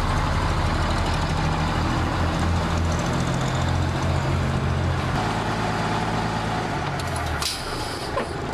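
1965 Mack B61 truck's diesel engine running as the truck drives off, its low note shifting a few times and fading toward the end. A short hiss about seven and a half seconds in.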